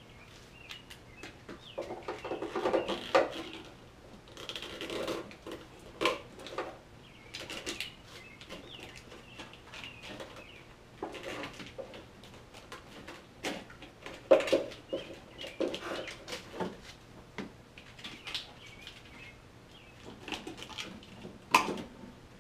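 Handling noise from a trailer wiring harness and its plastic tube being worked and fed down through the opening behind a Jeep's taillight: irregular rustling with scattered clicks and knocks, loudest about two to three seconds in and again around fourteen seconds.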